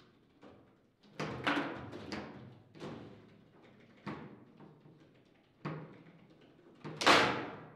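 Table football play: the ball knocking against the plastic player figures and the table walls as the rods are worked, in a run of sharp, irregular knocks. The loudest knock comes about seven seconds in.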